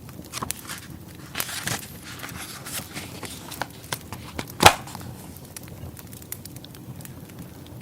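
Wood fire burning, crackling with irregular small snaps and one loud pop about halfway through.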